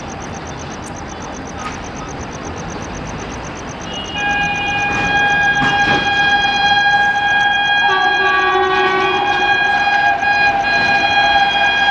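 Indian Railways train horn sounding one long, held multi-tone blast that starts about four seconds in, over the steady running noise of the train. A second, lower-pitched tone joins for a second or so partway through.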